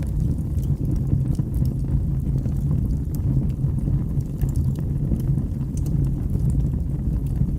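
Wood fire burning in a fireplace: a steady low rumble of flames with many small crackles and pops scattered through it.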